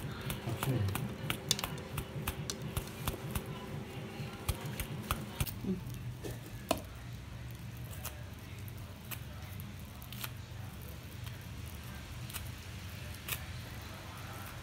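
Dry crackles and clicks of a papery nest comb as fingers tear open its capped cells to pull out the brood. The clicks come thick and fast for the first six seconds or so, then thin out to an occasional one, over a faint steady hum.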